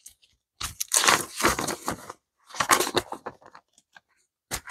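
Paper banknotes rustling and crinkling as a stack of dollar bills is shuffled and fanned out by hand, in two stretches of about a second each, then a couple of light taps near the end.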